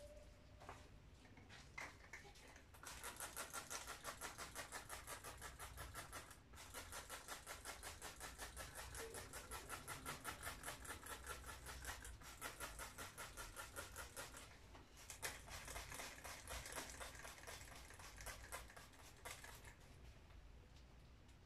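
Gloved hands rubbing fast back and forth, about four scratchy strokes a second, in runs of a few seconds with short pauses between them. The rubbing starts about three seconds in and stops near the end.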